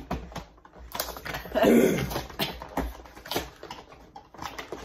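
Cardboard Pokémon card boxes being handled and pulled open by hand: a run of quick clicks, scrapes and rustles of card and packaging, with one louder rasping noise about one and a half seconds in.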